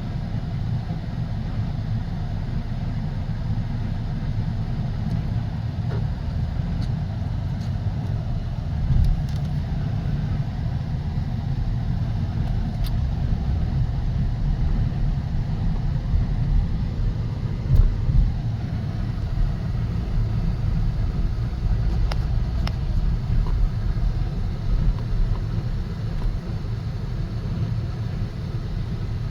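Steady road and engine rumble inside a small car's cabin while driving, with a few faint clicks here and there.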